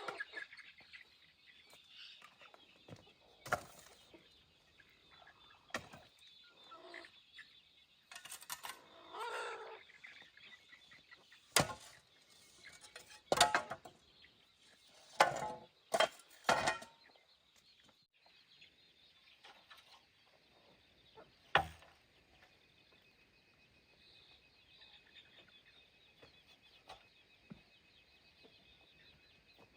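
Chickens clucking on a farm, with a steady high-pitched background drone and a handful of sharp knocks, several close together in the middle.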